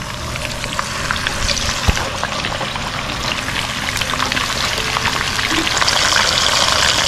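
Chicken drumsticks sizzling and crackling in hot oil with rosemary and garlic. The frying grows steadily louder as more pieces go into the pan, with a brief knock about two seconds in.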